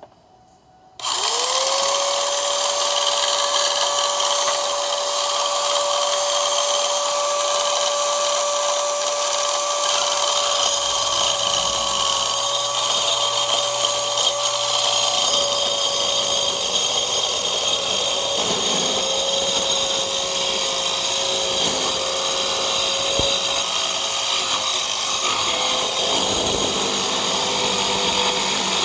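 Hyper Tough mini circular saw switched on about a second in, its motor running with a steady high whine. Past the middle the pitch dips a few times and sags lower near the end, as the blade takes load.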